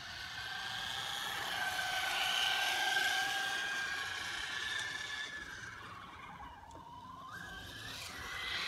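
Electric motor and gear whine of a Traxxas Slash 4x4 RC truck driving, its pitch wavering with the throttle. It grows louder, fades, then rises in pitch and swells again near the end.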